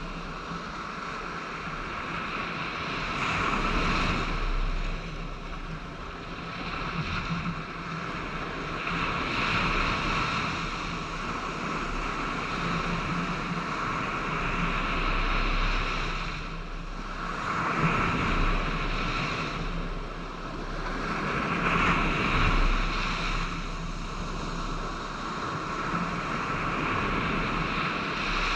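Waves washing on a beach, with wind buffeting the microphone: a steady rushing that swells and fades every few seconds.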